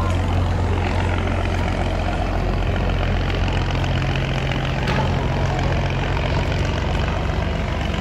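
A large engine idling with a steady low drone, a deeper hum swelling a little in the middle.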